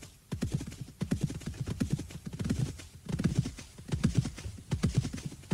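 A horse galloping: hoofbeats striking in rapid clusters that repeat about once a second.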